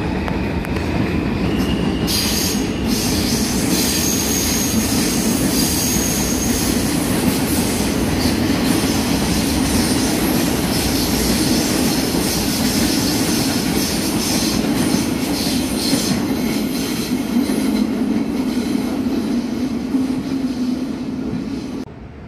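New York City subway train running on elevated track, a steady rumble with high-pitched wheel squeal from about two seconds in until past the middle. The sound drops suddenly just before the end.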